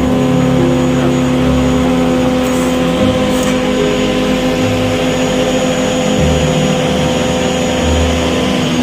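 Electric motor of a woodworking cutter running steadily, with a constant hum.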